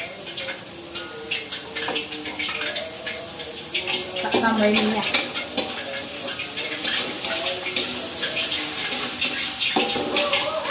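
A spatula scraping and stirring food in a pan as it sizzles in hot oil, in many short strokes. There is a louder clatter of utensil against pan about four seconds in.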